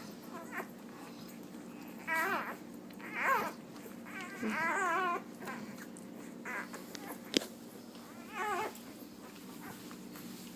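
Five-day-old Labrador puppies whining and squealing in short, high, wavering cries, several times, one of them longer and quavering about halfway through. A single sharp click sounds a little after it.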